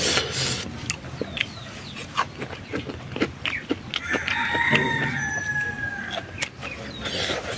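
A rooster crowing once, a long call of about two seconds beginning about four seconds in. Sharp clicks sound on and off around it.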